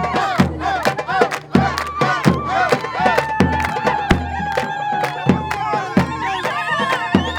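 Lebanese wedding zaffe music: a steady, pounding drum beat under a held, wavering wind-instrument melody, with crowd voices and singing mixed in.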